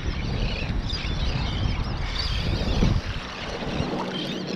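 Wind rumbling on the microphone, with many seabirds calling overhead in short, high chirping cries; the rumble eases about three seconds in.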